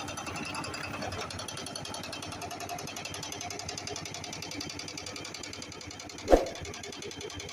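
Jackhammer breaking stone: a fast, steady mechanical rattle, with one sharp knock about six seconds in.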